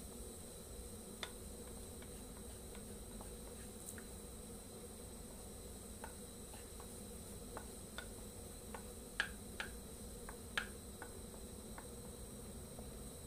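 Soaked sago pearls poured and scraped from a bowl into a pan of boiling water, with scattered light clicks and taps of the bowl and utensil against the pan, a few sharper ones about nine to eleven seconds in. A faint steady high hum runs underneath.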